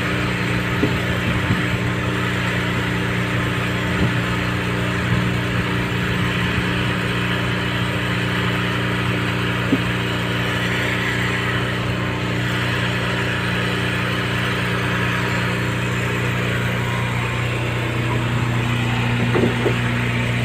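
Heavy diesel engine idling steadily, with a few light knocks over the first ten seconds. Near the end a second steady tone joins the idle.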